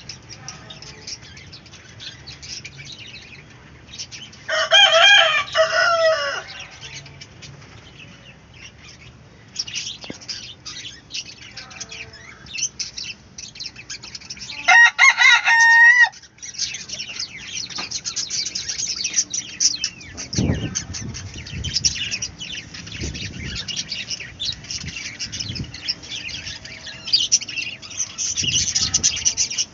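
Country-chicken rooster crowing twice, each crow about two seconds long, over steady high chirping and clucking from the flock, with a few low thumps in the second half.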